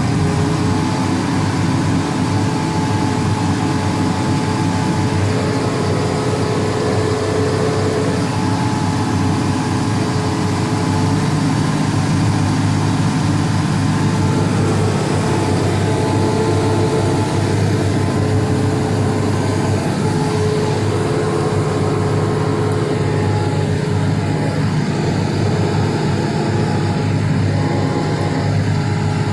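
A Deutz tractor running under PTO load, driving a Tomahawk Teagle 808 bale processor as it chews up a straw bale and blows it out of the chute. It makes a loud, steady machine din with a constant tone on top, heard from inside the tractor cab, and a lower hum comes in about eleven seconds in.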